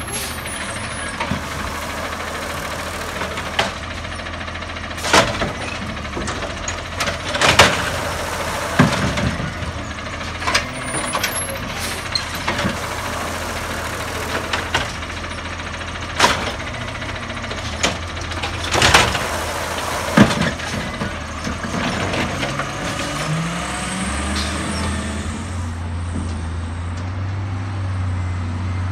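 Peterbilt 320 automated side-loader garbage truck running, its arm lifting and dumping trash carts into the hopper with a series of loud bangs and clatters. The engine grows louder near the end.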